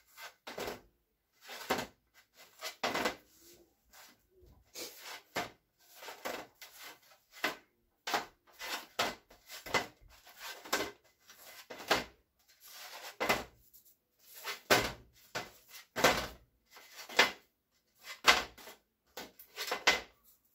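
Hardtack biscuits, baked hard for half an hour, being flipped over one by one by hand, each knocking down onto the baking sheet. The knocks come irregularly, about one or two a second.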